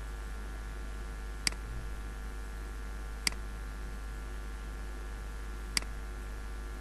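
Three separate computer mouse clicks, a second or two apart, over a steady low hum.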